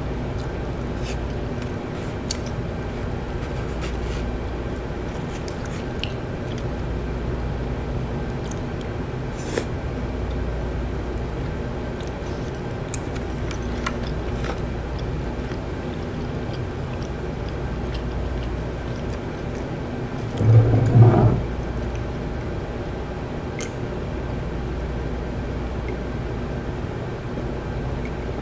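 Close-up eating sounds: chewing and biting, with small clicks of chopsticks against bowls, over a steady low hum. One brief louder low sound about two-thirds of the way through.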